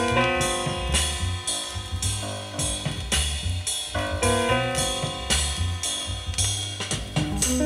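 Music with drums playing from a vinyl LP on a Sears-branded ELAC 40 record changer.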